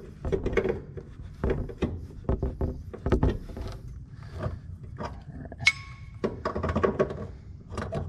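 A large open-end wrench and channel-lock pliers knocking and clicking on a live well pump's through-transom fitting as its nut is tightened, in irregular short knocks. One bright metallic clink rings briefly about six seconds in.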